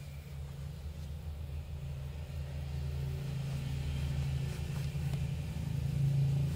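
Low, steady rumble that grows gradually louder.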